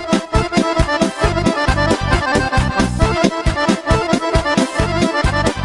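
Fast accordion-led folk music with a quick, steady beat, instrumental with no singing.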